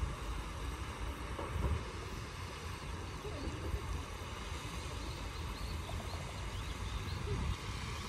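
Wind buffeting the microphone as a low rumble over a steady, even outdoor hiss, with a few faint, short high chirps scattered through.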